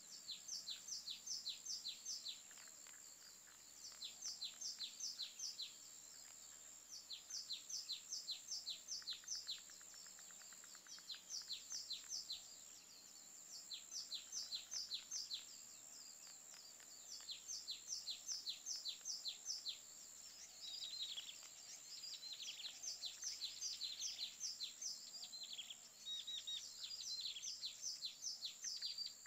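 Bird song: a bird repeating phrases of about eight quick, falling chirp notes, each phrase lasting about two seconds with short pauses between. A steady high-pitched tone runs underneath.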